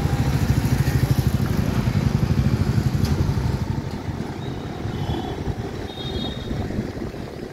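Road traffic crossing the railway tracks close by: a vehicle engine's low, pulsing rumble, loudest for the first three and a half seconds and then fading into lower, steady traffic noise.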